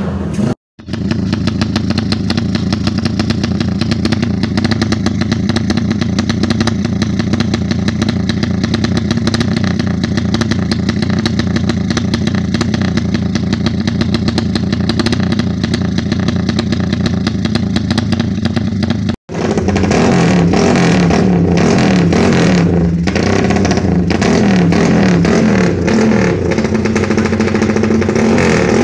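Motorcycle engines running through loud aftermarket BSS exhausts, heard in cut-together clips. First comes a long, steady high-revving run. From about two-thirds in, a different bike revs up and down in repeated throttle blips.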